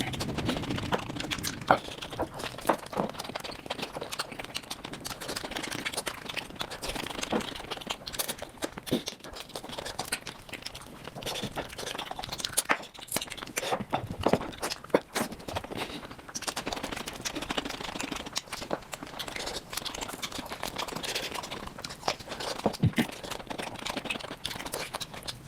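Close-miked eating sounds played at fast speed: wet chewing, lip smacks and tearing of mutton off marrow bones, as a rapid stream of irregular clicks and crackles.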